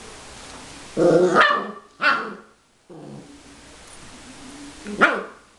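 Puppy barking during rough play: a longer bark about a second in, a short sharp one a second later, and another about five seconds in.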